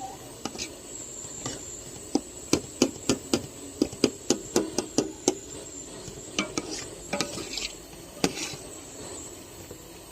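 Spoon stirring chicken in a cooking pot, knocking against the pot in a quick run of about four strikes a second, then a few scattered strikes, over a steady low sizzle.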